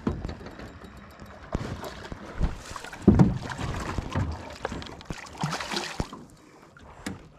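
Scattered knocks and clunks of handling in a small aluminium boat, the loudest about three seconds in, with a brief splash of water at the hull shortly before the end.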